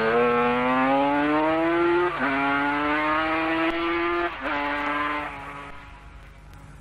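Racing sidecar outfit's engine accelerating hard, its pitch climbing steadily with two gear changes, then fading as it moves away.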